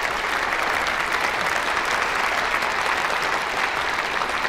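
A large audience applauding: a dense, steady wash of clapping.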